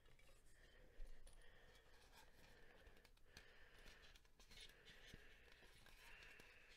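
Near silence: faint room tone with scattered small rustles and clicks, and a soft knock about a second in.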